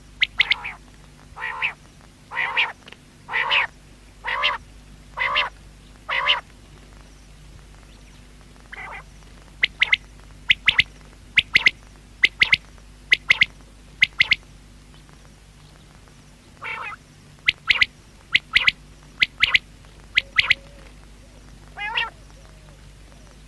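Common quail calling. First comes a run of lower, rougher notes about one a second. Then, after a pause, come clusters of short, sharp high notes in quick succession, twice with a gap between.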